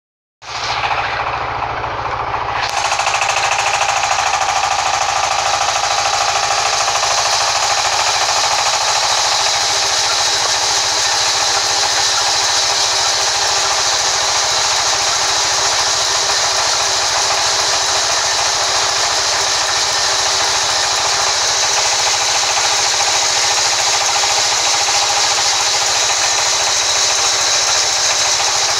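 Large band sawmill running steadily, its blade sawing through wood. The noise starts about half a second in and grows fuller, with a strong high hiss, about two and a half seconds in.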